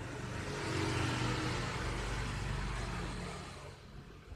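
A motor vehicle engine passing by, swelling up and then fading away.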